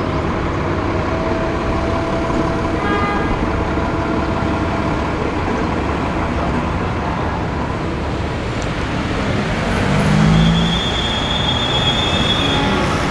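Steady rumble of city street traffic, swelling about ten seconds in as a heavier vehicle passes, with a thin high-pitched squeal near the end.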